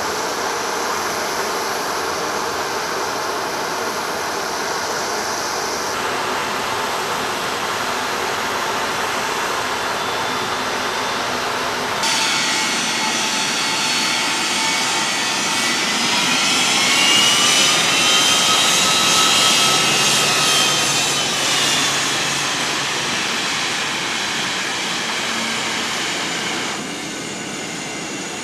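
Boeing C-17A Globemaster III's four Pratt & Whitney F117 turbofan engines whining as the aircraft taxis past, the whine rising and falling in pitch and loudest about midway. Before it, a steady rush of engine noise, cut off abruptly twice.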